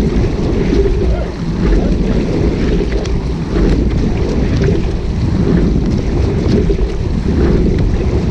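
Wind buffeting the microphone of a camera mounted on a moving rowing shell, mixed with water rushing along the hull. The noise is loud and steady, easing for a moment about every two seconds in time with the rowing strokes.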